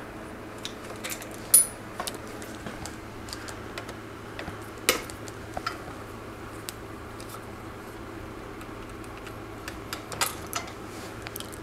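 Light metallic clicks and clinks of hand tools and bicycle brake hardware as worn rear brake pads are taken off. The sharpest come about a second and a half in and about five seconds in, with a few more near the end, over a steady low hum.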